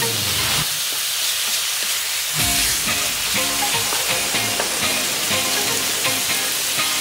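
Pork pieces frying and sizzling in a wok as they are stirred with a wooden spatula, over background music. A falling glide in the music ends about half a second in, and rhythmic notes come back in about two and a half seconds in.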